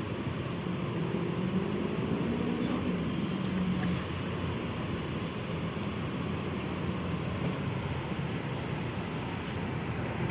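A bus's diesel engine running steadily, with its pitch rising and falling slightly a few seconds in.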